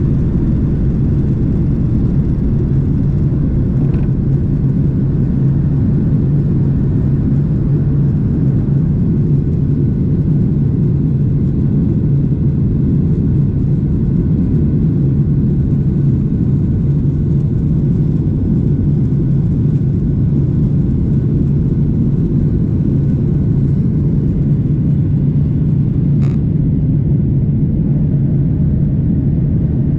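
Steady low rumble of airliner cabin noise from the engines and airflow, heard from inside the passenger cabin, with one faint click near the end.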